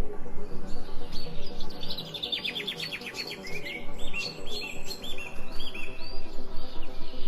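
Songbirds chirping and whistling in short repeated phrases, with a fast trill of rapid notes a couple of seconds in, over a steady low background tone.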